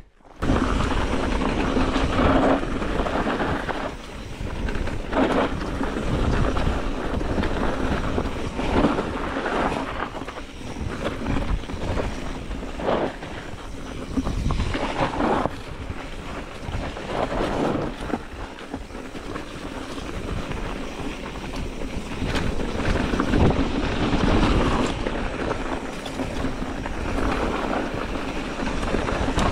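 Wind buffeting an action camera's microphone over the rumble and rattle of a mountain bike riding a rough dirt trail, rising and falling unevenly.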